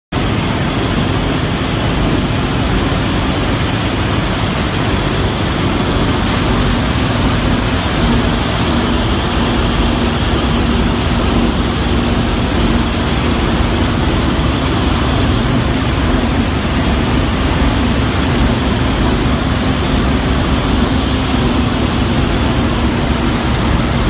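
LDPE film recycling washing line running: loud, steady machinery noise with a constant low hum under an even rush.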